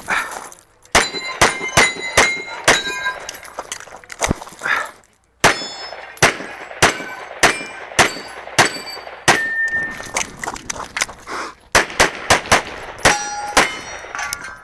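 Rapid strings of pistol shots from a single-stack 1911-style pistol, with steel plate targets ringing as they are hit. The firing breaks off briefly just under a second in and again about five seconds in.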